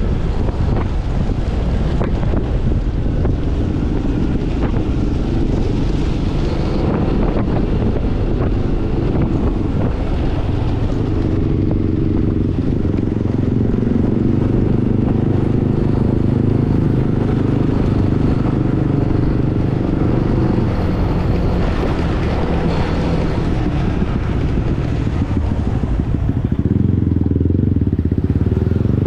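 Yamaha NMAX scooter's single-cylinder engine running under way, its note shifting as the rider changes speed, with wind rushing over the action camera's microphone.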